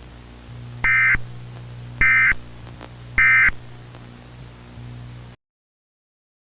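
Three short electronic data bursts about a second apart, the SAME end-of-message tones of an Emergency Alert System broadcast, over a faint low hum. The sound cuts off into silence about five seconds in.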